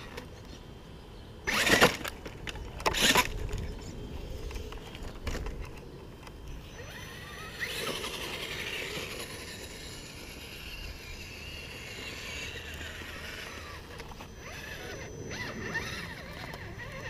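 Radio-controlled rock crawler with a Tekin brushless electric motor clambering over firewood logs. Two loud, brief scraping bursts come in the first few seconds. Then the motor and drivetrain whir steadily as the truck drives across the grass and back onto the logs.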